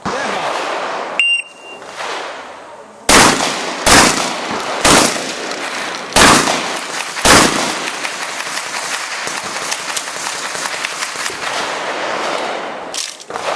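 A shot timer's short electronic start beep, then five loud 12-gauge shotgun blasts over about four seconds, followed by a clattering noise and a sharp knock near the end.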